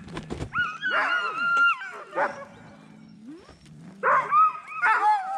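Harnessed Alaskan huskies whining in high, drawn-out calls, the sound of a sled team eager to run while held at the start. Long whines come about a second in and again from about four seconds, with a quieter gap between.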